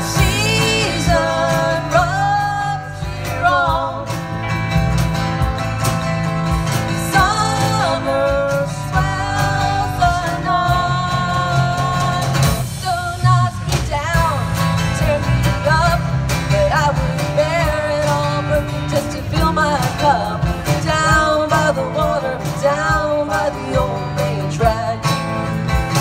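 Live band playing a country-rock song: a woman singing lead over strummed acoustic guitar, electric guitar, electric bass and a drum kit.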